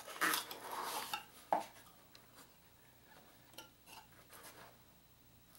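Small cardboard box being opened by hand: cardboard rustling and scraping for about the first second, a single sharp click about a second and a half in, then faint handling sounds.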